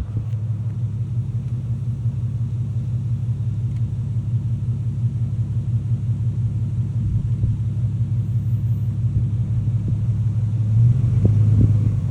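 Steady low hum, a little louder near the end.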